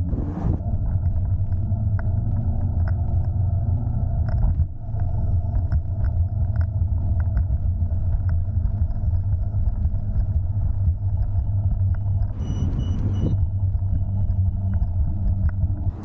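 Wind and road noise on a moving electric scooter's camera microphone: a steady low rumble with a faint steady tone running through it. About twelve seconds in, a brief hiss with a high tone.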